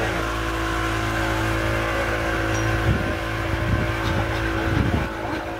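Tourist boat's engine running steadily, a constant drone, with a few brief gusts of wind buffeting the microphone in the second half.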